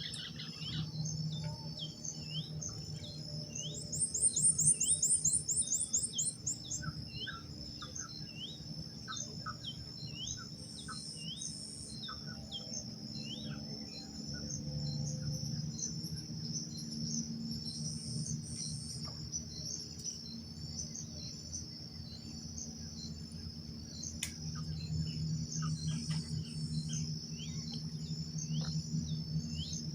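Dawn chorus in tropical riverside woods: a steady high insect drone with birds calling in many short, repeated falling chirps. A louder rapid trill comes about four seconds in and lasts about two seconds, over a low steady hum.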